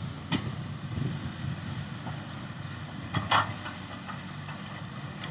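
Caterpillar 320C excavator running with a low, steady diesel drone, broken by clanks about a third of a second in and a louder burst of clanking just past three seconds.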